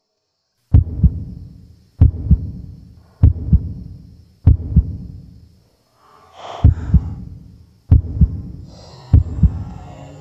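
Heartbeat sound effect: pairs of low thumps, lub-dub, repeating about once every 1.2 seconds, starting about a second in.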